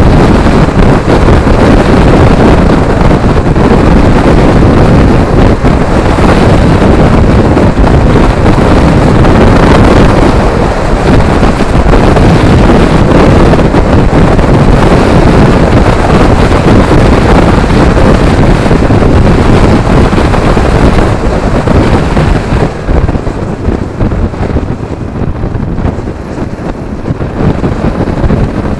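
Heavy wind buffeting on the microphone of a camera riding on a moving motorcycle, a loud, even rumble that eases near the end as the bike slows.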